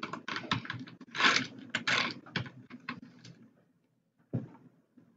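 Computer keyboard being typed on: a run of quick, irregular keystrokes for about three and a half seconds, then one more click a little after four seconds in.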